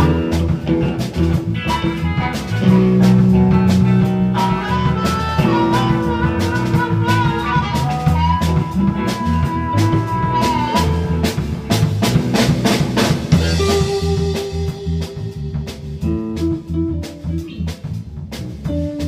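Blues band music: guitar playing long held lead notes over drums and bass.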